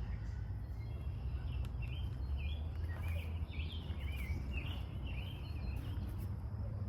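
A songbird singing a run of quick chirping phrases from about two seconds in until near the end, over a steady low rumble.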